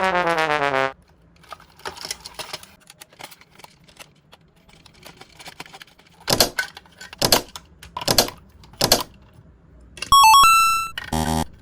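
Toy packaging being handled: faint crinkling, then four harsh scrapes about a second apart. Near the end come a quick run of electronic beeps and a short buzz.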